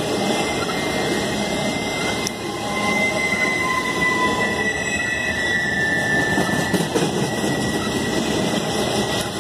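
Intermodal freight train's flatcars rolling past: a steady rumble of steel wheels on rail, with thin, high wheel squeals rising over it from about two seconds in until about seven seconds in.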